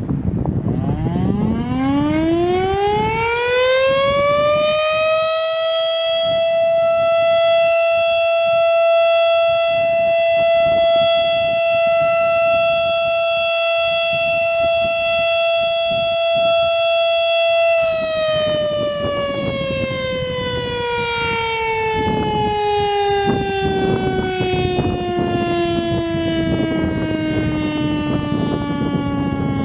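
Federal Signal STH-10 12-port warning siren sounding a steady alert. It winds up in pitch over about five seconds and holds one steady tone. About eighteen seconds in, power cuts and it winds down slowly, its pitch falling as the chopper coasts.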